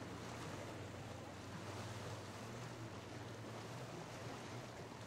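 Motorboat engine running steadily, a low hum over the wash of waves and wind.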